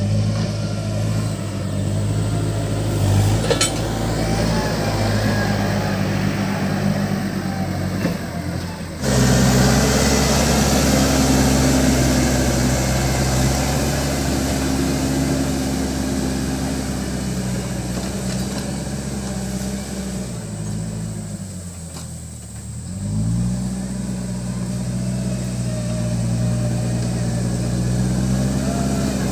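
Diesel engine of a Case 580 Super M backhoe loader running steadily while it pushes and levels gravel. It gets suddenly louder about nine seconds in, and about two-thirds of the way through its pitch drops and then climbs back up.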